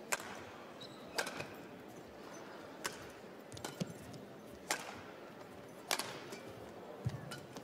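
Badminton rally: rackets striking a shuttlecock, a sharp crack roughly every second, about seven hits in all.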